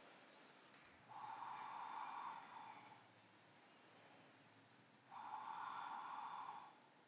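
A woman breathing slowly and audibly through the nose, quietly: two long breaths of about a second and a half each, some four seconds apart.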